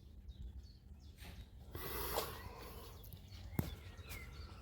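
Quiet outdoor ambience: a steady low rumble, a hissy rustle lasting about a second, a single sharp click past halfway, and a short bird chirp near the end.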